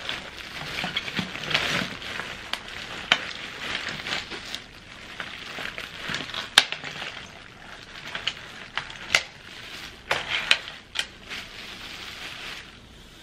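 Plastic cooking bag crinkling and rustling as a seafood boil of crab legs, crawfish, mussels and clams in garlic butter sauce is poured out onto a tray, with scattered sharp clicks and clacks.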